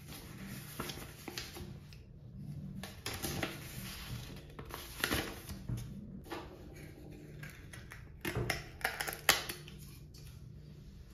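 Paper instruction card rustling and plastic parts of an IKEA TISKEN suction-cup basket clicking and knocking as they are handled, in irregular bursts with the loudest near the middle and end. Soft background music plays underneath.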